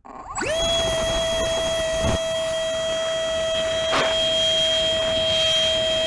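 Brushless electric motor and propeller of an RC flying wing, heard from a camera mounted on the plane, spinning up quickly from off about half a second in and then holding a steady whine at full throttle.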